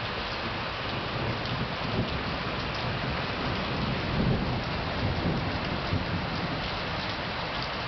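Steady rain falling, with a roll of thunder rumbling low that swells from about a second and a half in, peaks in the middle, and fades out near the end.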